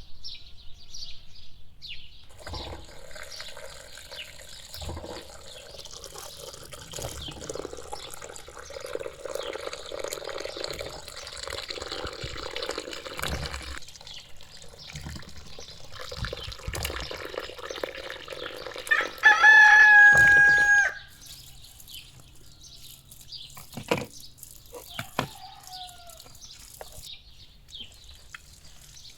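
A rooster crows once, loud and held for about a second and a half, about two-thirds of the way through. Before it there is a steady rushing noise with scattered knocks, and a few faint chirps and clicks come after it.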